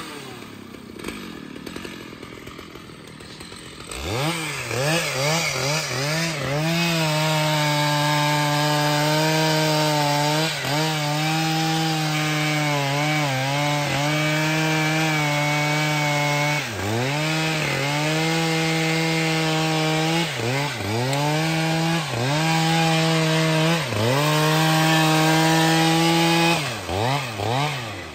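Stihl MS 881 two-stroke chainsaw sawing through a thick tree trunk: low for the first few seconds, then revved up about four seconds in and held at high speed in the cut. The engine note dips briefly several times as the chain loads up or the throttle is eased, and drops off near the end.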